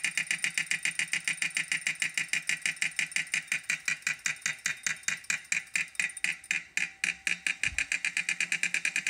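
2018 Wahoo Kickr smart bike trainer clicking as it spins, a rapid even train of about eight clicks a second that slows to about five a second past the middle, then speeds up again. A brief low thump comes about three-quarters of the way through. The clicking is a fault: a part that worked loose and knocked, cured by replacement parts.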